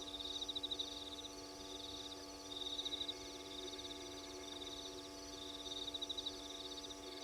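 Night chorus of calling insects: fast pulsed high trills in bouts of about a second, several callers overlapping, over a steady low electrical hum.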